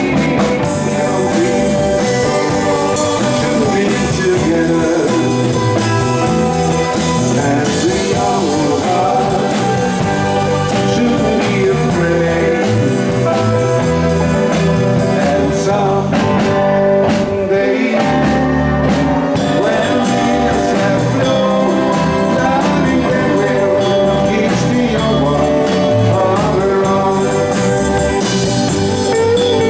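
Live rock band playing: drum kit with cymbals, electric bass and guitar, with a man singing over it.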